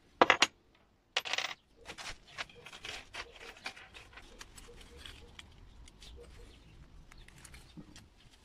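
Small metal engine parts clinking on a workbench as they are handled and set down: connecting rod, piston pin and piston rings. Two sharp clicks at the start and a louder clatter about a second in, then a run of lighter clicks and scrapes with the rustle of gloved hands.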